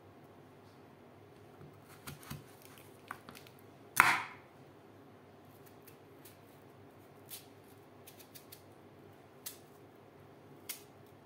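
Watermelon rind pieces and a kitchen knife being handled on a wooden cutting board: scattered light taps and knocks, with one much louder knock about four seconds in.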